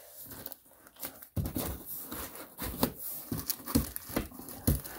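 Plastic wrapping rustling and cardboard and foam packing scraping as hands work a packaged desktop computer out of its shipping box, with a few sharp knocks in the second half.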